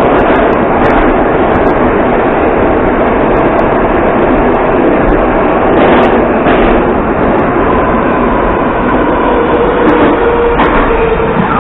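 Interior running noise of an 81-740.1/741.1 "Rusich" metro train travelling through the tunnel: a loud, steady rumble and rush of wheels on rail. In the last few seconds a faint steady whine from the drive joins in as the train nears the station.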